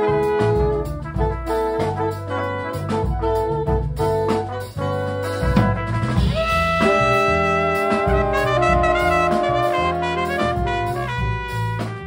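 Small jazz ensemble playing: a horn section of trumpet, trombone and two saxophones plays together over bass and drum kit. Short punchy horn figures give way to long held notes about six seconds in.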